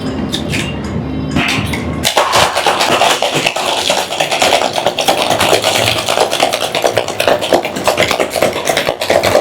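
Ice rattling hard inside a cocktail shaker as a cocktail is shaken, a fast, steady clatter that starts about two seconds in after a few lighter knocks.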